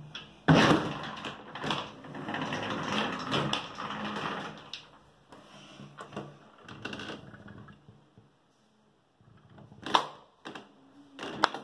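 A home elevator's folding plastic inner door is slid open with a rattling clatter lasting about four seconds. A few softer clicks follow, then two sharp latch clicks from the hinged outer door near the end.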